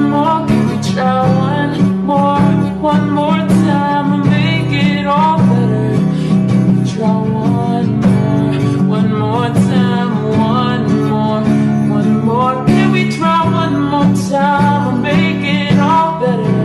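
Background music: a pop ballad carried by guitar, with no lyrics recognised in this stretch.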